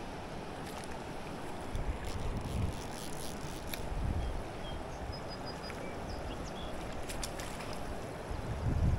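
Steady rush of a fast-flowing river current, with low wind buffets on the microphone a few times and some faint clicks.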